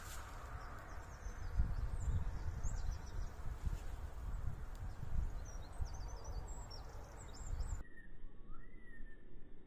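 Wind buffeting the microphone with a low rumble, with small birds chirping high and thin over it. Near the end, slower whistled bird notes that slide up and down in pitch take over.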